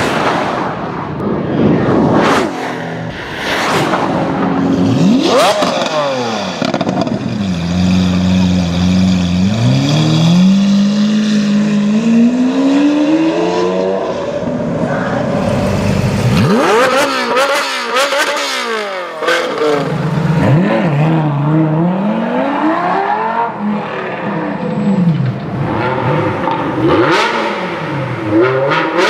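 Supercar engines revving and accelerating. The engine pitch climbs and falls again and again: one long, steady climb midway, then a series of quick rev blips near the end.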